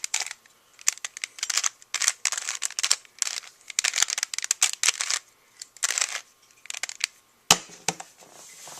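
Rubik's cube layers being turned, a quick irregular run of plastic clicks and rasps as the cube works through the last-layer edge-permutation algorithm, with one sharper click near the end.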